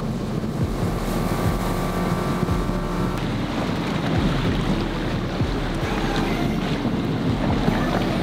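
Boat's outboard motor running at a steady pitch as the boat speeds across the water, with spray and wind. A little over three seconds in it cuts off abruptly to a steady rush of water and wind on the microphone with no engine tone.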